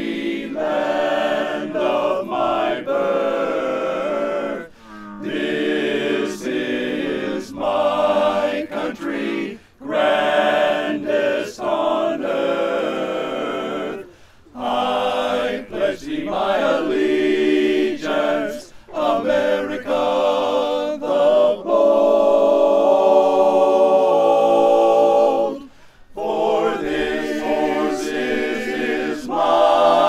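Men's barbershop chorus singing a cappella in close four-part harmony, in phrases broken by short breaths. A long held chord comes about three quarters of the way through.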